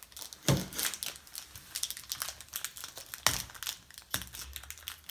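Foil trading-card packets being crinkled and torn open by hand: an irregular crackling, with two louder crackles about half a second in and a little after three seconds in.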